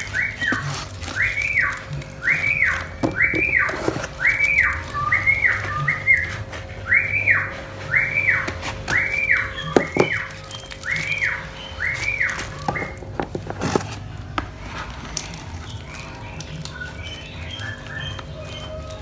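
A whistled call repeated over and over, each note rising and then falling, a little more than one a second, stopping about 13 seconds in. Light clicks and rustles of cardboard being handled sound underneath.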